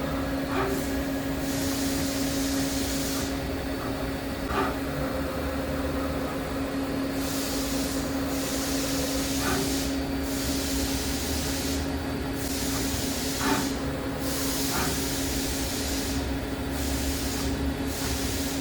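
Daewoo DMV4020 CNC vertical machining center running, with a steady hum and bouts of hissing that switch on and off every second or two, plus a few light clicks.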